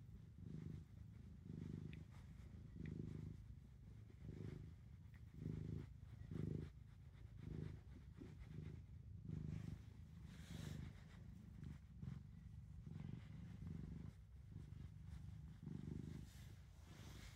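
Domestic cat purring contentedly while being stroked, the purr swelling and fading with each breath about once a second. Short rustles of the hand rubbing its fur about two-thirds of the way in and near the end.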